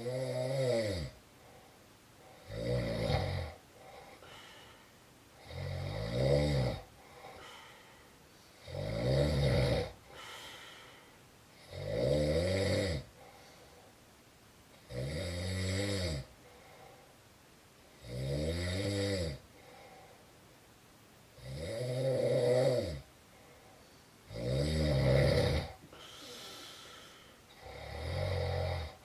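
Snoring: a loud snore about once every three seconds, each lasting about a second, with a softer breath out between them.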